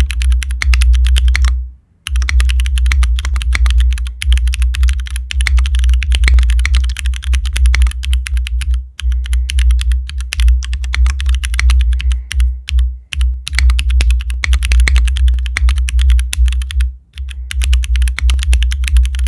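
Sound test of fast typing on a MODE Sixtyfive mechanical keyboard in solid lattice-block mount, with Cherry MX Black linear switches, GMK keycaps and an aluminium plate and no foam. The keystrokes run as a quick, bright clack with a little scratch from the MX Blacks. The typing breaks off briefly about 2, 9, 13 and 17 seconds in.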